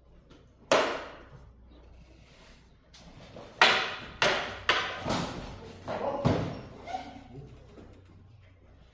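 Practice swords clashing with one another and striking padded fencing armour. There is one sharp clack about a second in, then a quick flurry of six or seven clacks and thuds between about three and a half and seven seconds, each ringing briefly.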